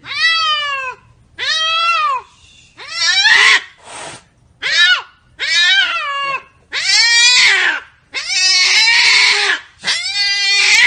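Domestic cat meowing loudly over and over, about nine calls, each rising then falling in pitch. The later calls grow longer and rougher.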